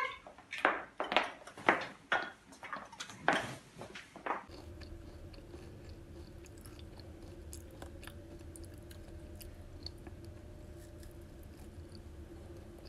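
A handful of sharp knocks and clatters in the first four seconds, then a child chewing and biting a crunchy biscuit stick, faint crunches over a steady low room hum.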